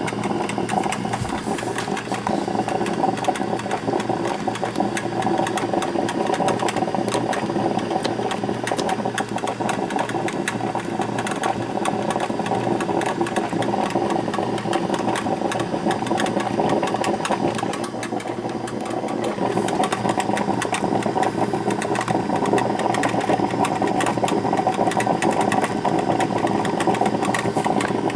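Black & Decker drip coffee maker brewing: a steady sputtering gurgle, with many small pops and crackles throughout.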